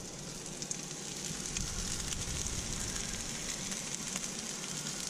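Salmon patties browning in hot oil in a skillet: a steady sizzle with fine crackling.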